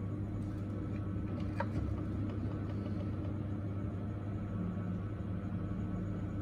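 A steady low machine hum, with a faint click or two about a second and a half in.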